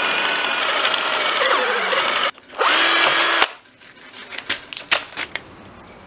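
Cordless drill running at the rod eye of a hydraulic cylinder, with a steady motor whine: one long run, a short pause a little after two seconds, then a second short run that stops about three and a half seconds in. Light clicks and handling knocks follow.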